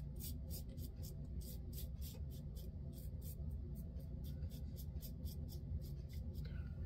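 Timeless 0.68 titanium double-edge safety razor scraping through lathered stubble on the neck and jaw in short, quick strokes, about five a second.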